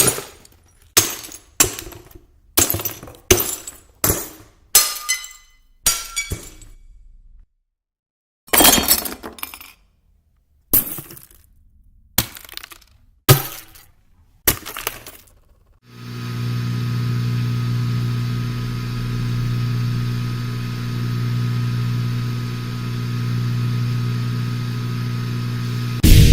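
Glass breaking and shattering: a rapid series of about a dozen separate smashes, each with a brief tinkling decay, with a pause about halfway through. This is followed by a steady low hum that slowly swells and fades in level for about ten seconds, then a loud hit near the end.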